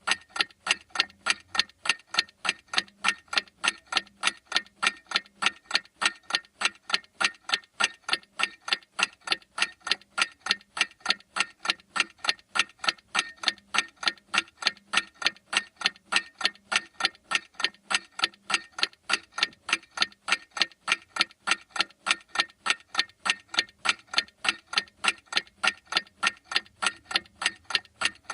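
Clock ticking steadily and evenly, several sharp ticks a second.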